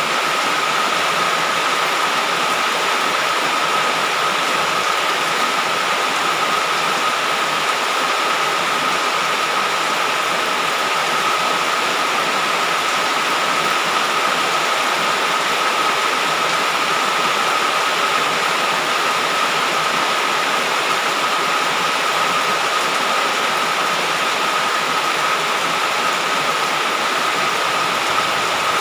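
Heavy rain falling in a steady, even hiss, with a faint steady high-pitched tone running through it.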